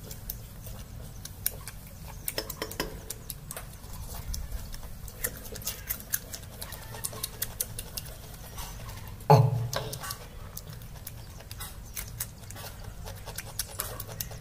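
Close-up eating sounds of a person eating by hand: many small, sharp chewing and mouth clicks. A single loud knock comes about nine seconds in.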